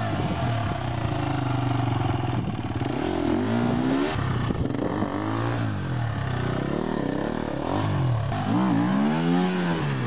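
Husqvarna 250 enduro dirt bike engine revving hard under load while climbing a rutted gully, its pitch rising and falling repeatedly as the throttle is worked.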